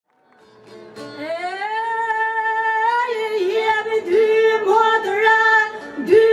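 Female folk singing in Albanian style with a plucked long-necked lute. The music fades in, and the voice slides up into a long held note about a second in, then moves into a melody with quick turns in pitch.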